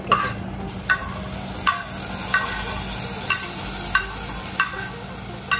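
Metal spoon knocking and scraping against a small frying pan, pushing ghee-fried cashews out into a pot of payasam. About eight short ringing clinks come at an even pace, roughly one every 0.7 seconds, over a steady hiss.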